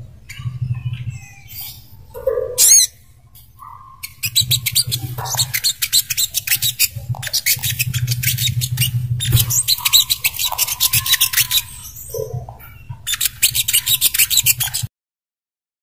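Sogok ontong (burung kelapa, the brown-throated sunbird) song: bursts of rapid, high chittering trills broken by a few sharper whistled notes, over a low hum. It cuts off abruptly about a second before the end.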